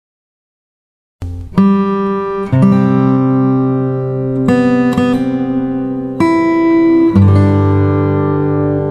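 A second or so of dead silence, then background music: acoustic guitar chords, with a new chord about every one to two seconds.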